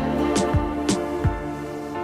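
Instrumental background music: sustained chords over a steady beat of kick drum and snare.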